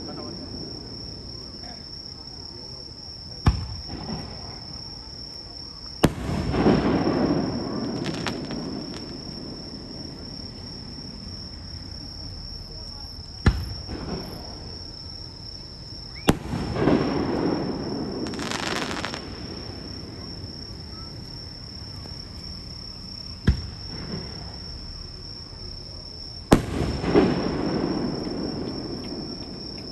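Fireworks display: six sharp bangs of aerial shells a few seconds apart, three of them followed by a couple of seconds of rumble and crackle. A steady high-pitched insect chirring runs underneath.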